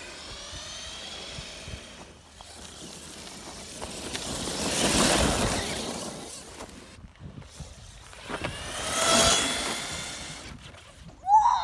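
The electric motor and gears of an FTX Carnage RC truck whine up and down in pitch as it drives. It passes close twice, about five and nine seconds in, each time with a swell of rushing tyre noise. Near the end comes a short, sharp, high-pitched sound, the loudest moment.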